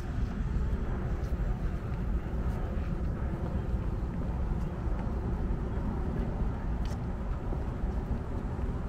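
Outdoor ambience: a steady low rumble with a few faint ticks.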